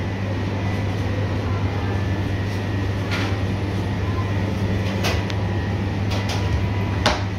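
Indoor shop ambience: a steady low mechanical hum, with a few short clicks or knocks about three, five and seven seconds in.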